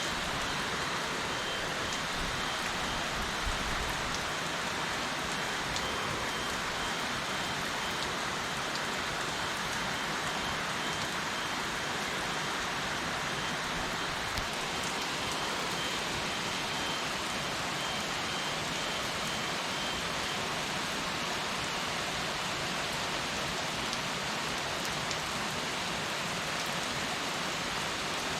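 Heavy rain falling steadily and evenly.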